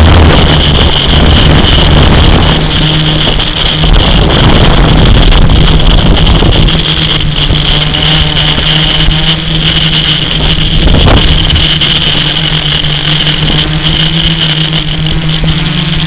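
Multirotor drone's electric motors and propellers whining steadily, heard through the drone's own onboard camera, with wind rumbling on the microphone, heavier in the first few seconds.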